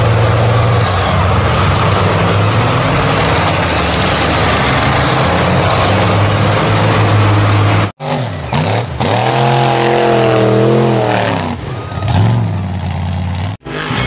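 Off-road trucks driving through deep mud: one engine running steadily under heavy load, then, after a sudden cut about eight seconds in, another engine revving up and down several times.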